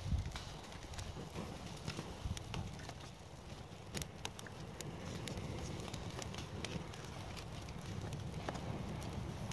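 Twigs and kindling crackling and snapping in irregular sharp clicks, with a louder snap about four seconds in, over a steady low rumble.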